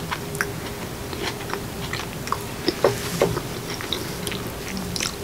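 Close-miked chewing: a person eating a mouthful of food, with soft wet mouth clicks and smacks scattered through.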